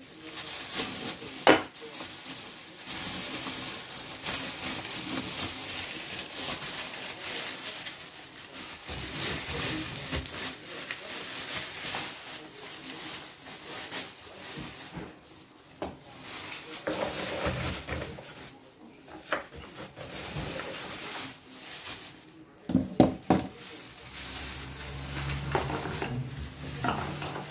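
Kitchen clatter of pots, dishes and utensils over a steady hiss like food sizzling or water boiling, with scattered sharp knocks, the loudest a couple of seconds before the end.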